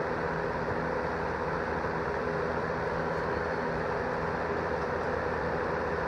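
GE three-speed box fan running on medium speed: a steady rush of air with a constant motor hum underneath.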